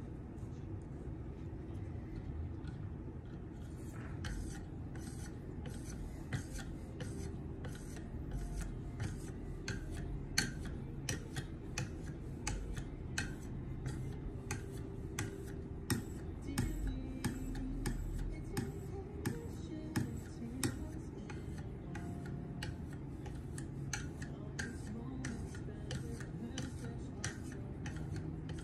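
KME guided knife sharpener being stroked back and forth along a knife edge with a 9-micron lapping film on its stone carrier, a light click at each stroke, about two a second, starting a few seconds in.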